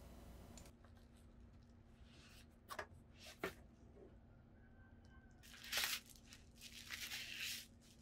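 Product packaging being torn open and handled, faintly: two short clicks about three seconds in, then a brief tearing burst and a longer stretch of tearing and rustling near the end.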